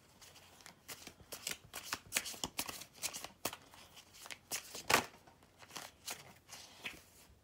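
A deck of tarot cards shuffled by hand: an irregular run of quick card snaps and slaps, the loudest about five seconds in.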